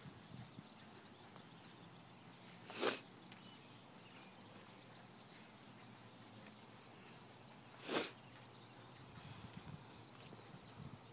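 A ridden horse snorting twice, each a short sharp blow through the nostrils, about five seconds apart, over faint hoofbeats.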